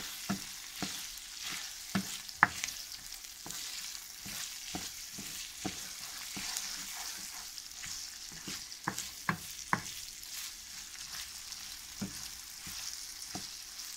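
Arborio rice and onion sizzling in oil in a white-coated skillet while a wooden spoon stirs, knocking and scraping against the pan one or two times a second. The rice is being toasted dry in the oil until it glistens, before any liquid goes in.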